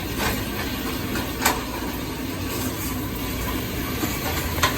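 Ground beef sizzling in a pan as it browns: a steady hiss, with a sharp click about a second and a half in and another near the end.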